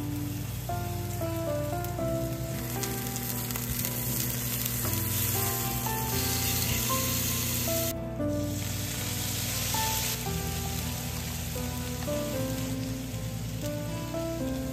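Onion rounds sizzling as they fry in oil in a nonstick frying pan, a steady hiss that briefly drops out about eight seconds in and then resumes. A soft background music melody plays underneath.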